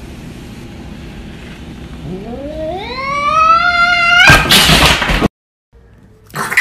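Domestic cat yowling defensively at a perceived rival: a long, drawn-out call that climbs steadily in pitch, then breaks into a loud, harsh burst about four seconds in before it cuts off abruptly.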